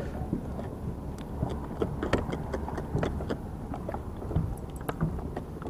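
Water lapping against a plastic kayak hull, with irregular small knocks and clicks over a steady low rumble.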